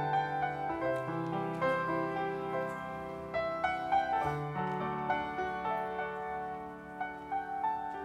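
Piano playing slowly and gently, notes and chords struck and left to ring.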